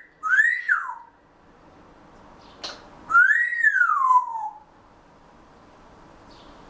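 Grey parrot whistling: two whistles that each rise and then slide down, the second longer and falling further, with a brief click just before it.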